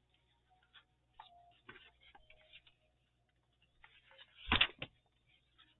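Faint ticks and light rustles of paper and craft supplies being handled on a work table, with a louder brief rustle or knock, two strokes close together, about four and a half seconds in.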